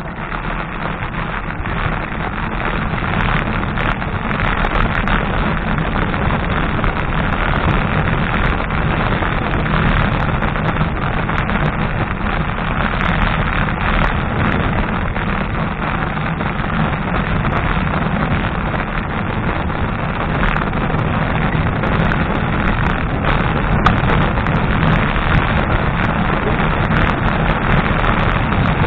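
Wind rushing over the microphone of a bicycle-mounted camera, mixed with tyre and road rumble from the moving bike: a steady noise that grows a little louder over the first few seconds, then holds level.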